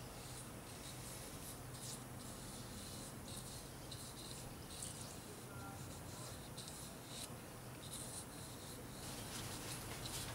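Faint scratching of a small brush spreading anti-seize paste on a steel wheel hub face, in scattered short strokes over a low steady hum.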